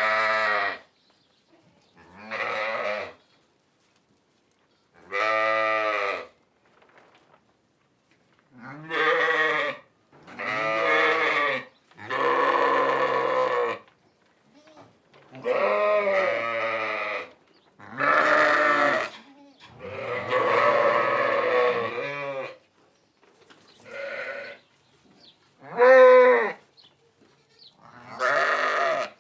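Sheep bleating: about a dozen separate wavering baa calls, each a second or two long, with short pauses between them and varying in pitch from call to call.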